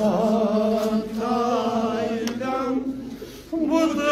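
A man's voice chanting a Kashmiri noha, a mourning lament, unaccompanied, in long held notes with a wavering pitch and a short break for breath near the end.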